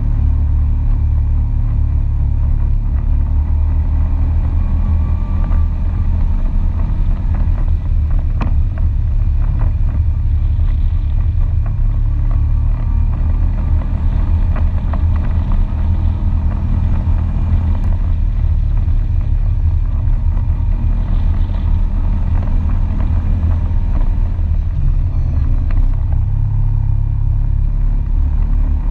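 ATV engine running steadily while riding a dirt trail, a loud low rumble that holds an even pitch, heard from the front of the vehicle.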